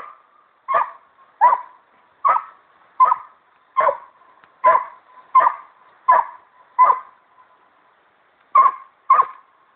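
Dog barking in a steady run of short, sharp barks, about one every three-quarters of a second, with a short pause near the end before two more.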